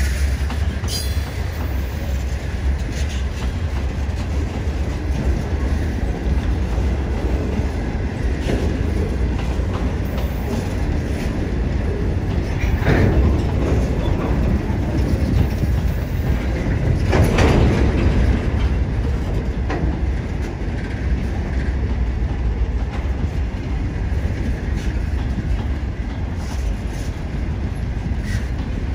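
Coal hopper wagons of a freight train rolling past, with a steady rumble of wheels on rail and clacks over rail joints. It swells louder twice, about 13 and 17 seconds in.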